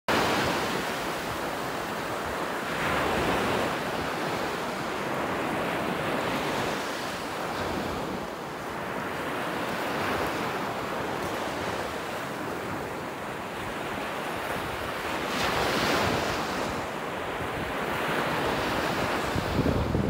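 Gulf of Mexico surf breaking and washing up the beach, a continuous rush that swells and ebbs, louder about three seconds in and again around fifteen seconds, with wind buffeting the microphone.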